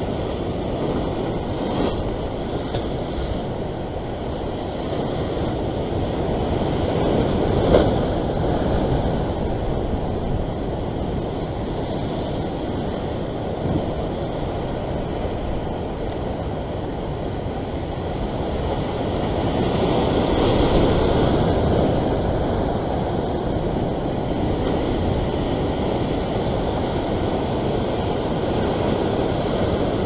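Ocean surf surging and washing over sea rocks, with wind rumbling on the microphone. The wash swells about eight seconds in and again around twenty seconds in.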